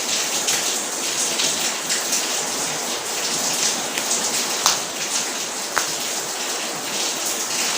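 Steady rain, with a couple of short light clicks about halfway through.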